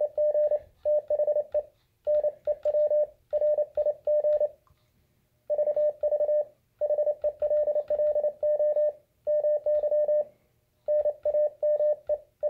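Morse code (CW) sidetone from an Elecraft KX2 QRP transceiver transmitting into a dummy load: one steady mid-pitched beep keyed in quick dots and dashes, sent in groups with short pauses between words. It plays loudly through the retrofit's added audio amplifier.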